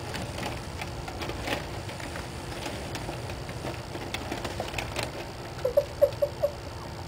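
Light rustling and scratching of newspaper and cardboard as a cat pushes into a hole in a cardboard box. Near the end a person gives a short run of giggles, about five quick 'heh' sounds.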